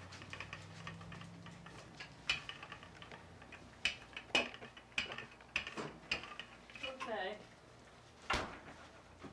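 Wooden rolling pin rolling out cookie dough on a tabletop: irregular sharp clicks and knocks, with a quick ticking rattle in the first two seconds.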